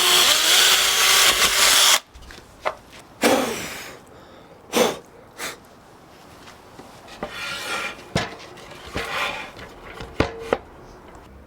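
A power tool running at full speed, with a steady whine, stops about two seconds in. It is followed by scattered knocks, taps and short scraping sounds of wood and tools being handled on the bench.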